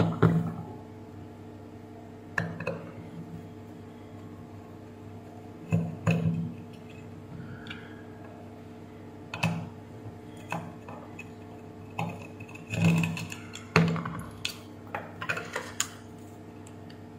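Small metal parts and tools clicking and clinking against each other and the bench as the thermostat is taken off a steam iron's soleplate: irregular sharp knocks, some in quick pairs, over a steady low hum.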